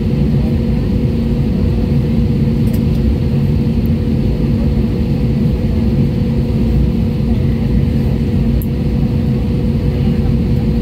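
Steady cabin hum of an Airbus A320neo waiting on the ground, its Pratt & Whitney PW1100G geared-turbofan engines at idle, a constant low drone with a couple of steady tones over an even rush of air.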